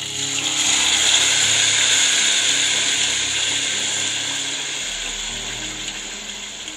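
Thick tomato paste poured into hot oil tempering in a stainless steel kadai, sizzling loudly. The hiss builds over the first second, then slowly dies down as the wet paste cools the oil.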